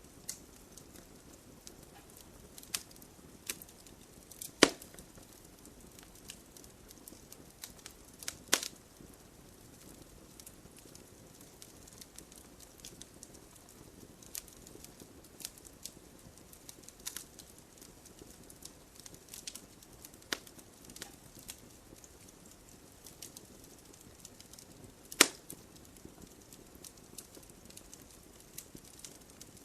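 Wood burning in a campfire, crackling with scattered sharp pops over a soft low hiss; three snaps stand out louder than the rest, two in the first third and one near the end.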